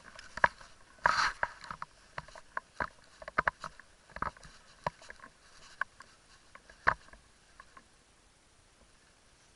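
Handling noise from a camera mounted on a hunting gun: scattered small clicks and rubbing as the gun is held and swung slowly, with a short rush of noise about a second in. The clicks die out about two seconds before the end.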